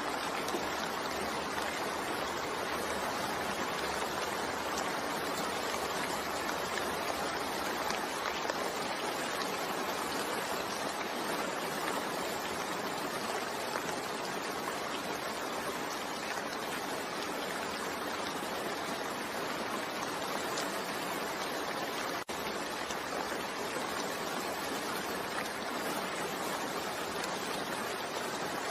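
Steady rain falling, an even hiss of water without distinct drops standing out, with a momentary dip in the sound about three quarters of the way through.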